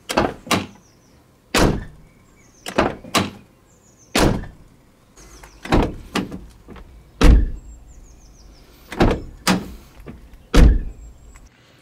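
The front cab door of a VW T6 van, fitted with sound-deadening matting and extra rubber door seals, is opened and shut repeatedly. There are about a dozen sharp thuds and clicks of the handle, latch and door closing, and the two heaviest slams come in the second half.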